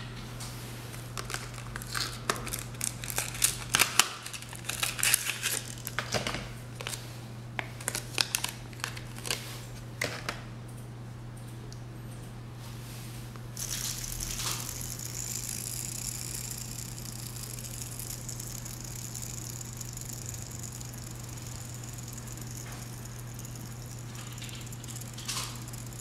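Packaging crinkling and clicking as a blue tri-fidget spinner is handled on its card, then, from about halfway, the ABS spinner whirring on its stainless steel centre bearing: a steady, high hiss.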